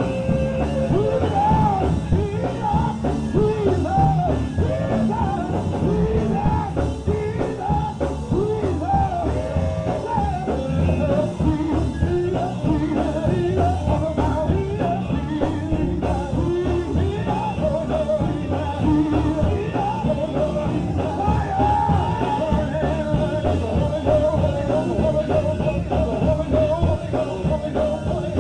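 Live gospel group singing with a full band behind them, drums and bass driving a steady beat. Sung lines slide up and down, and from about three quarters of the way through one voice holds a long note.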